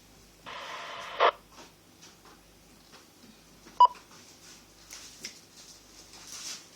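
UHF CB radio's speaker with a short burst of steady tones from a repeater, cut off by a sharp squelch-tail crack, then a single short beep a few seconds later over faint hiss.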